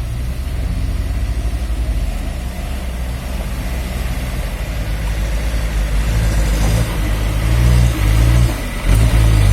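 A vehicle's engine running while moving along a road, with road and wind noise; it grows louder in the second half and briefly drops away about eight and a half seconds in.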